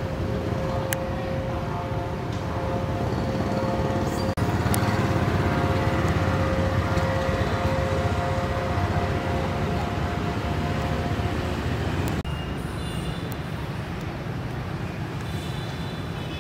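A steady motor drone over a low rumble, with a held humming note. The sound changes abruptly about four seconds in and again about twelve seconds in, and the hum drops away after the second change.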